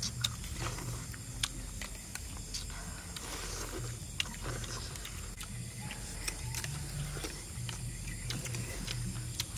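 Metal spoons clicking and scraping against plastic plates as several people eat, in scattered irregular ticks over a low hum.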